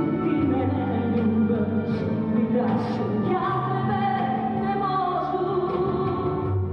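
Music from a slow song: long held chords with a melody line moving above them, and no sung words.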